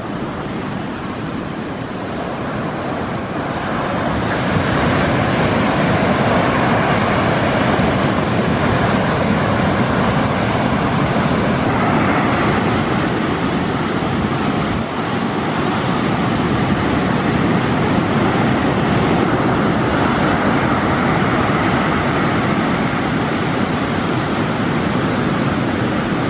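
Surf from a typhoon swell breaking on a beach: a steady wash of wave noise that grows a little louder about four seconds in.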